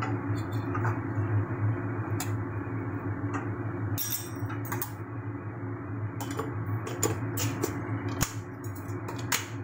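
Kitchen utensils clinking and knocking against pans and dishes in a string of short sharp clicks, more frequent in the second half, over a steady low background hum.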